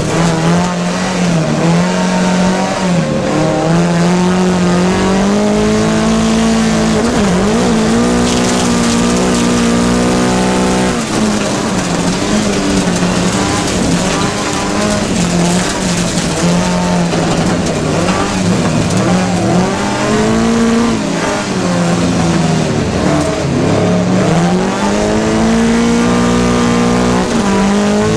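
Rallycross race car's engine at full race pace, revving hard with its pitch dropping and climbing again several times as the driver lifts, brakes and accelerates through corners.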